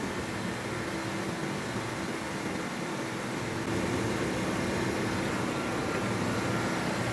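Steady machinery drone of a ship's air-conditioning refrigeration compressor running, with a few faint steady tones in it; it gets a little louder about halfway through.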